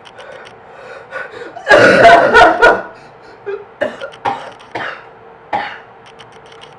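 A person with a cold sneezing and coughing: one loud fit about two seconds in, then a string of five short coughs.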